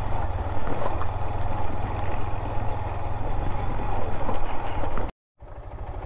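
Motorcycle engine running steadily while riding a rough, broken road, with a constant rattle and knocking from the bumps. The sound cuts out completely for a moment about five seconds in.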